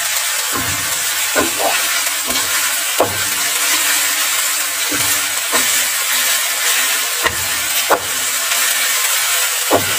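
Chopped shallots, garlic, red chilli and spring onion sizzling in hot oil in a pan, with a steady hiss. They are being sautéed until fragrant. A wooden spatula stirs them, scraping and knocking against the pan every second or so.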